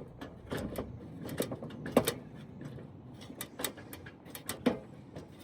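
About a dozen irregular knocks and scuffs, the loudest about two seconds in: someone moving about on the asphalt-shingle roof.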